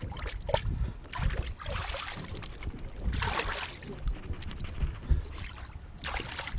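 Hands being rinsed in seawater over the side of a boat: irregular swishing and small splashes, the largest about three seconds in, over a low rumble of wind on the microphone.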